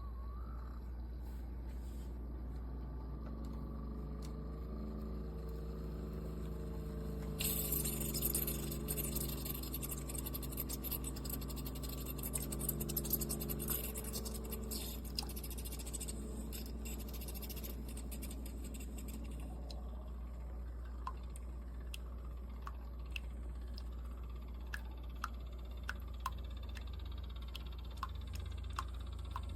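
Keurig K-Supreme Plus pod coffee maker running a brew cycle: a steady pump hum starts a few seconds in, hissing and sputtering join it, and it stops about halfway through, leaving scattered faint ticks.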